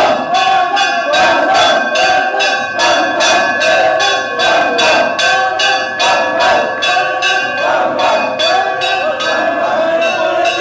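A temple bell struck over and over, at about two to three strokes a second, each ring running into the next. A crowd of men shouts and chants together over the bell.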